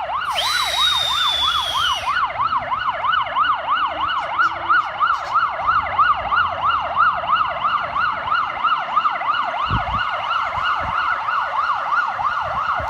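Emergency vehicle siren on a fast yelp, rising and falling about three times a second without a break. In the first two seconds a burst of hiss with a falling whistle rides over it.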